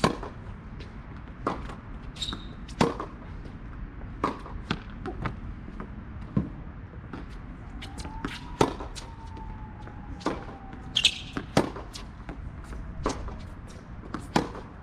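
Tennis rally on a hard court: sharp pops of rackets striking the ball and the ball bouncing on the court, coming every second or two from both ends, the nearest hits the loudest.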